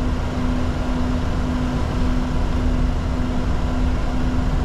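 Steady rumble and hiss of a Bombardier Challenger 604's engines and airflow heard inside the cockpit, with a constant low hum.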